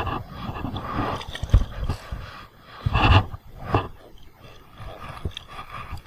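Irregular thumps, knocks and splashing as a small catfish is swung up out of the water and clamped with fish grips at a kayak's side; the loudest knocks come about a second and a half in and again about three seconds in.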